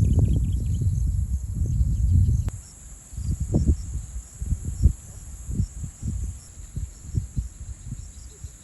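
Insects calling in a steady high-pitched chorus, with wind buffeting the microphone in low rumbling gusts, heaviest in the first couple of seconds and then in short puffs.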